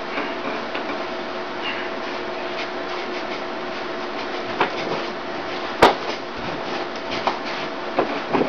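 Scattered sharp knocks and clacks from punching against resistance bands anchored over a wooden door, the loudest a single crack about six seconds in and a quick pair near the end, over a steady background hum.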